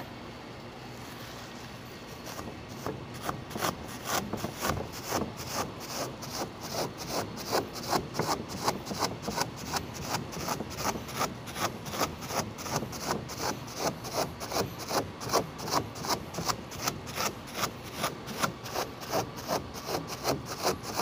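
A wad of crumpled paper dabbed and rubbed repeatedly against wet spray paint on a canvas, texturing it, in quick regular strokes of about two to three a second that start about two seconds in.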